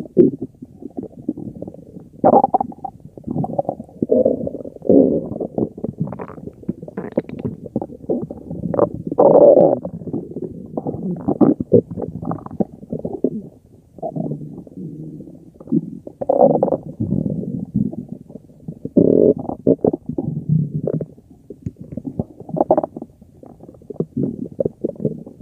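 Human stomach growling: a long run of low rumbles and gurgles that swell and fade irregularly, with louder growls every few seconds.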